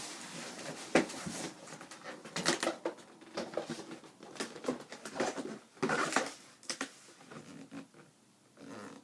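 A cardboard box and packing paper being handled: irregular rustling and scraping with a string of light knocks and clicks, busiest in the middle and fading near the end.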